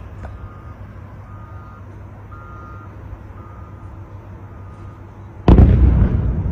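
An alarm beeps about once a second over a low rumble. About five and a half seconds in, a single heavy explosion from a missile strike booms and rumbles away.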